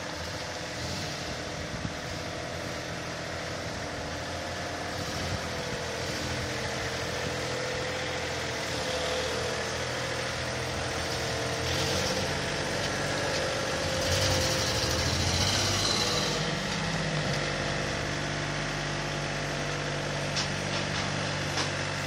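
A Toyota T100 pickup's 3.0-litre V6 runs at low speed as the truck rolls by, with a steady engine hum. A brief hiss rises over it a little past the middle, and the engine note shifts near the end.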